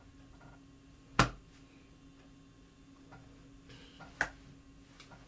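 Hands striking sharply three times while signing: about a second in, again about three seconds later, and once more at the end, the first strike the loudest. A faint steady hum lies underneath.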